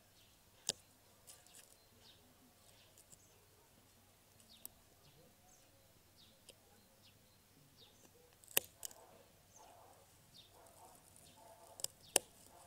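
Bypass pruning secateurs snipping rose canes: sharp single clicks, one about a second in, two past the middle and two near the end. Faint bird chirps sound in the background.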